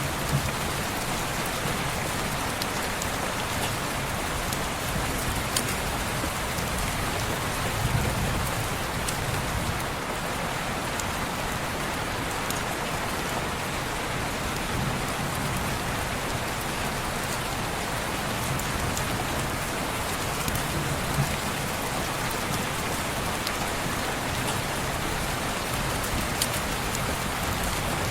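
Steady rain falling on window glass, an even hiss with scattered sharp drop ticks and a few soft low swells.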